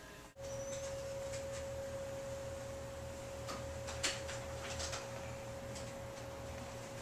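A steady single-pitch electrical whine over a low, pulsing machine hum, starting abruptly just after the start, with a few faint clicks, the sharpest about four seconds in.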